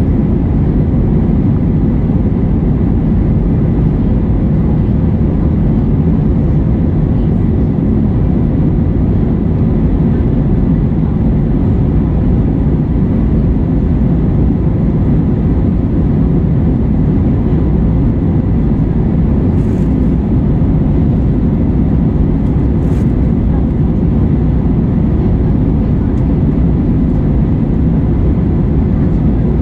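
Steady low rumble of a moving vehicle, unchanging throughout.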